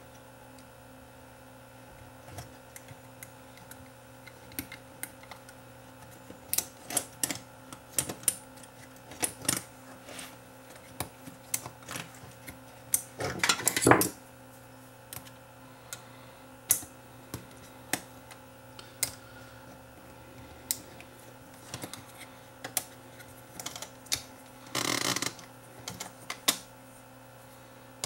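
Scattered light clicks and taps of hands and a screwdriver working on a Sony TC-WE435 cassette deck's plastic transport mechanism while a rubber drive belt is fitted. There is a louder clatter about halfway through and a short rustling burst near the end, over a faint steady hum.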